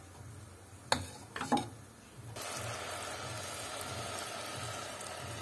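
Two short knocks of a spatula against the cooking pot. Then, about two and a half seconds in, boiling water starts pouring steadily into the pot of half-cooked spiced rice and vegetables.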